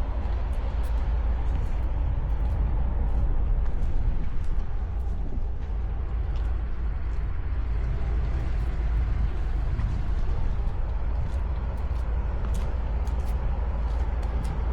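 Steady low rumble with a hiss above it, with faint scattered clicks throughout.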